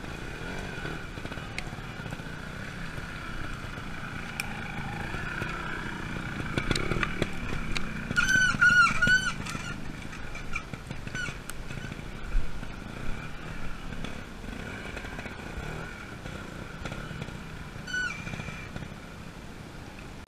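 Trials motorcycle engine running at low revs with blips of throttle as the bike picks its way over rough, rocky ground. A loud warbling squeal sounds about eight seconds in, and a shorter one near the end.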